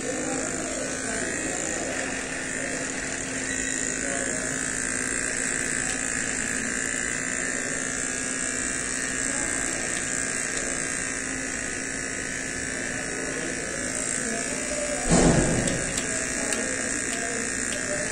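Electric beard trimmer buzzing steadily as it trims a beard. A single loud, brief thump about fifteen seconds in.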